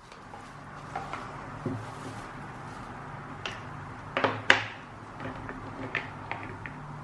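Small clicks and knocks of objects being handled in a room, over a steady low hum, with a sharper pair of knocks about four seconds in.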